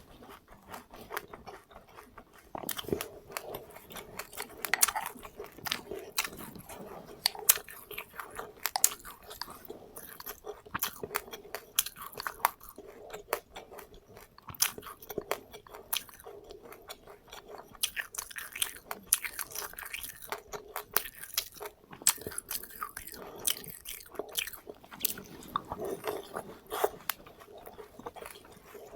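Close-up chewing and crunching of seeds eaten with passion fruit, a quick irregular run of small crisp crunches.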